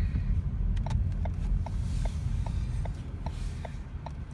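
Car turn-signal indicator ticking in an even rhythm, about two and a half ticks a second, starting about a second in, over the low rumble of the car inside the cabin.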